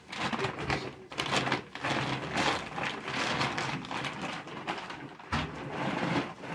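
Plastic grocery bags rustling and crackling as they are handled and groceries are taken out of them.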